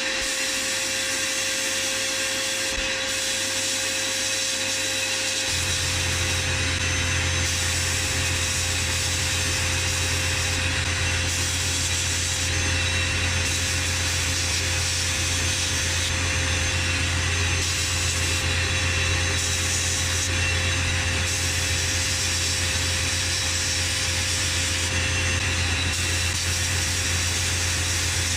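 A power tool running continuously and steadily, with a deeper hum joining in about five and a half seconds in.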